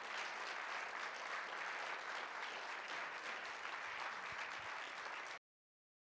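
Audience applauding, a steady dense clapping that cuts off suddenly about five seconds in.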